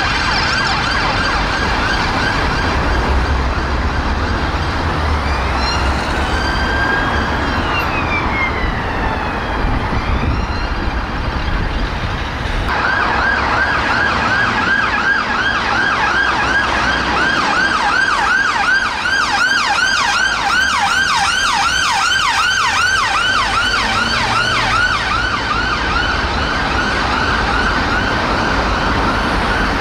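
UK ambulance sirens over road traffic. A fast warbling siren gives way to a slow wail that rises and falls. About 13 seconds in, a yelp siren starts abruptly and runs on at about three sweeps a second from a North West Ambulance Service Fiat Ducato ambulance.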